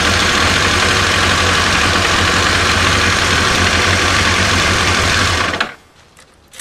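1992 Kawasaki ZXR 750 J's inline-four engine running steadily at idle, then stopping abruptly about five and a half seconds in, leaving only faint clicks.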